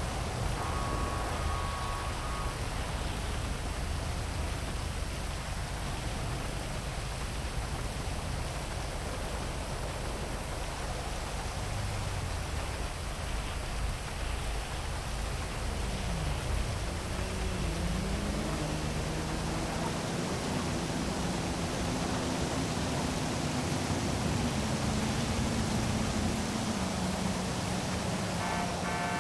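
Heavy rain over a city: a steady, dense hiss of rain with a low traffic rumble beneath it. About halfway through, a low droning tone glides down and back up in pitch, then holds for several seconds. Short high tones sound briefly near the start and again near the end.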